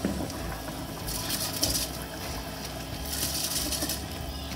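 Uncooked rice poured from a bowl into a pot of simmering water and vegetables: a hissing patter of grains hitting the liquid in two pours of about a second each, over a low steady hum.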